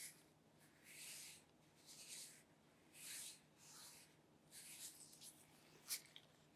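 Faint brushing or rubbing strokes, about seven of them, each under half a second, from something being handled, with one sharp click near the end.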